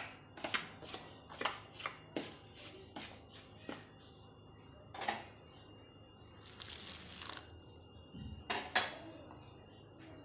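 Fingers mixing dry flour in a stainless steel bowl: short scrapes and taps of the hand against the bowl, about two a second at first, then sparser, with a brief rustle and a louder pair of knocks past the middle. This is the flour being worked by hand while water goes in a little at a time, before kneading into dough.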